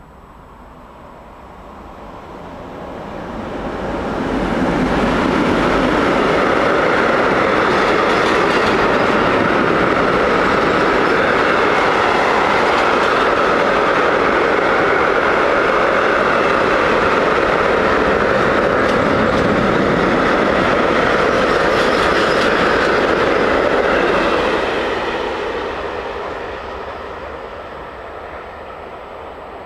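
Long electric-hauled freight train of hopper wagons passing on the line: the rumble of wheels on rail builds over the first five seconds, stays loud and steady for about twenty seconds as the wagons go by, then fades as the train draws away.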